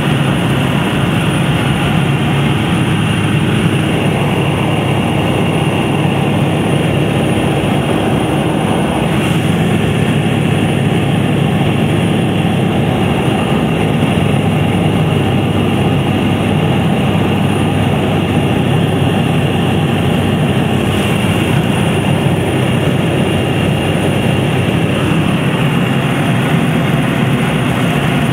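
Cabin noise of a de Havilland Otter: its single engine and propeller droning steadily and loudly as the plane climbs out after takeoff.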